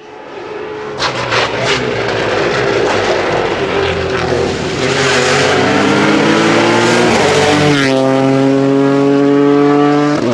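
Rally car engine at full stage pace, with a few sharp pops from the exhaust about a second in. The revs ease down, then climb quickly past the middle and hold high and steady until a sudden drop at the end.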